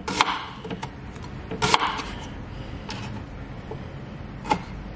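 A kitchen knife slicing a tomato on a cutting board, the blade knocking on the board about five times at uneven intervals, the clearest knock near the middle.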